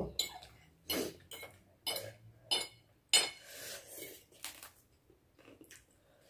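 Forks and spoons clinking and scraping on plates as two people eat noodles: irregular short clinks, the loudest about three seconds in.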